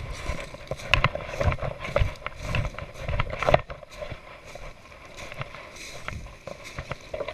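Footsteps crunching through dry leaf litter and brush, with rustling of clothing and gear. The steps are heavy and close-spaced in the first few seconds, then lighter.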